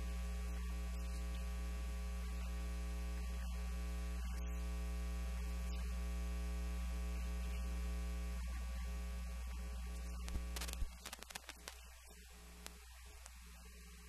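Steady electrical mains hum with a ladder of overtones on the audio line. About eleven seconds in, a few clicks sound and the hum drops to a much fainter level.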